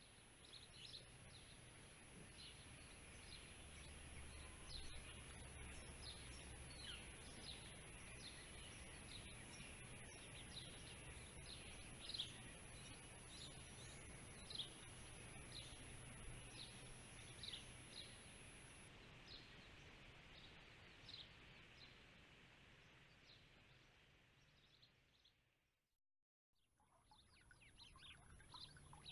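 Many small birds chirping over a steady outdoor hiss. The sound fades out about 25 seconds in, drops to a moment of dead silence, then comes back with denser chirping near the end.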